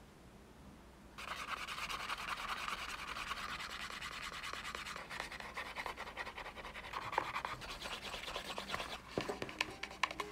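Wooden edge slicker rubbed rapidly back and forth along the edge of a leather piece, burnishing it: a fast, steady scratchy friction sound that starts about a second in. A few light knocks come near the end, as music begins.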